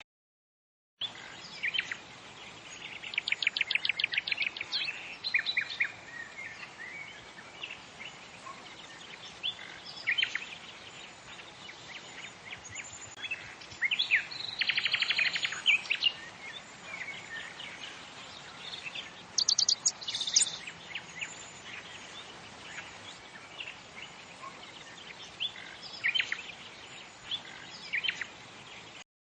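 Songbirds calling: scattered short chirps with a few rapid trills, one a few seconds in, one about halfway and one about two-thirds through, over a faint steady background hiss.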